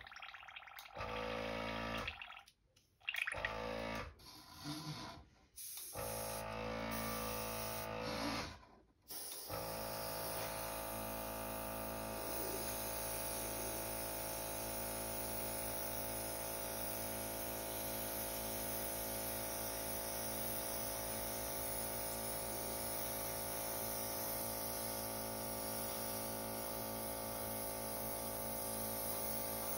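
Guitar music that stops about nine seconds in, then a Fengda FE-136K airbrush spraying paint with a steady hiss over the constant hum of its air compressor.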